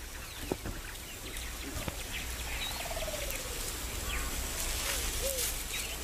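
Outdoor wildlife ambience: a low steady rumble with scattered faint bird chirps and short calls, one of them falling in pitch a few seconds in.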